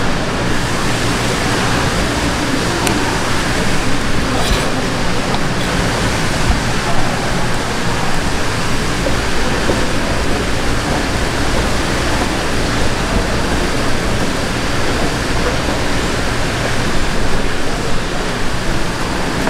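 Steady, loud rushing background noise of a fish market, with indistinct voices in it.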